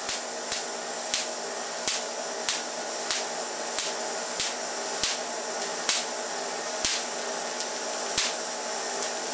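Sharp snapping electrical sparks from a Van de Graaff generator discharging between its charged dome and the tap water inside a plastic bottle on top of it. The snaps come about one and a half times a second over the steady whir of the running generator.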